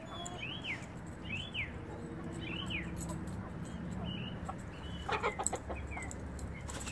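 Domestic hens clucking over a steady low background hum, with short high chirps about once a second and a brief run of louder clucks about five seconds in.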